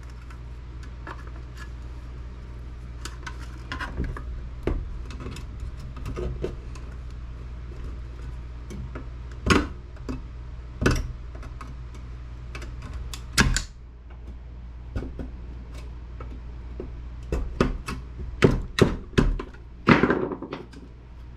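Desktop computer being taken apart by hand: scattered clicks, clinks and knocks of hand tools against the metal case and parts, with a quick run of louder knocks near the end, over a steady low hum.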